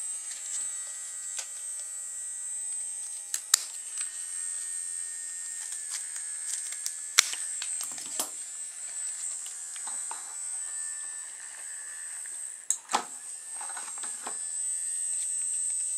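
Small DC motor from a cheap vibrating toothbrush, its offset weight removed, running steadily with a high whine. Sharp clicks and taps of the cardboard-mounted unit and toy car being handled come over it, loudest about three and a half, seven and thirteen seconds in.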